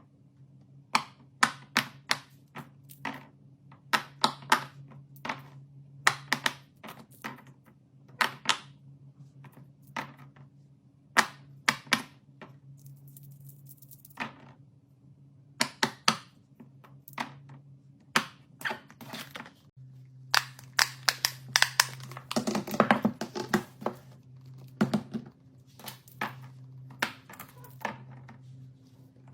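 Fidget toys being pressed and clicked: a long run of sharp pops and clicks at an uneven pace, a few a second, thickening into a denser cluster about two-thirds of the way through, over a low steady hum.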